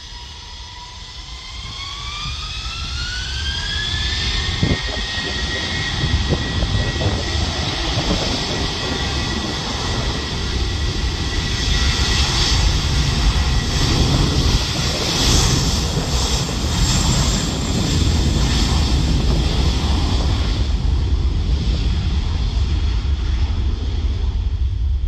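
Twin-engine jet airliner spooling up for its takeoff roll: the engine whine rises in pitch over the first few seconds, then holds steady at takeoff thrust while the deep jet roar grows louder and stays loud.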